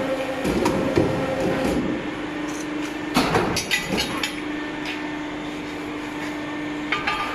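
CNC tube-bending machine running with a steady hum, with sharp metal clanks and knocks over it, a cluster of them about three seconds in and another near the end.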